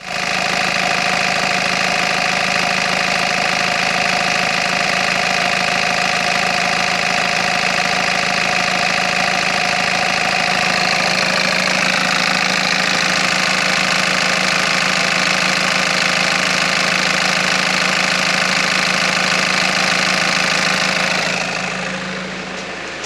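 Nissan Navara D22's 3.0-litre four-cylinder turbo diesel idling steadily with a loud diesel clatter, heard with the bonnet open. The sound grows somewhat quieter near the end.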